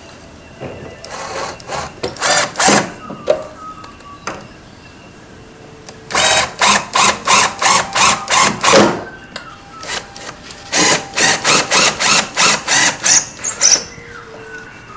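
Cordless drill-driver driving screws into a wooden window frame. It comes in three runs of short, repeated trigger bursts, about three a second: a brief run near the start, then two longer runs in the middle and near the end.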